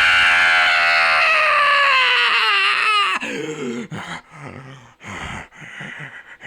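Made-up primate-like call meant for Australopithecus sediba: a long wailing cry that falls steadily in pitch for about three seconds, then a string of short, lower grunting calls with gaps between them.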